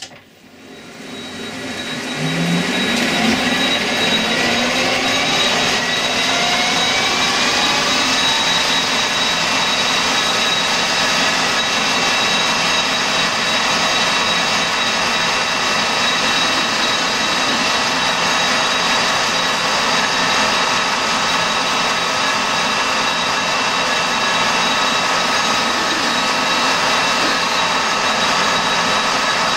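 Colchester metal lathe starting up: its gear whine rises in pitch over the first several seconds, then it runs steadily with a whine of several steady tones.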